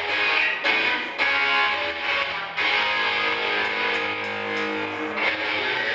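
A live rock band playing loud, with strummed electric guitars over a drum kit whose cymbal and snare hits keep a steady beat.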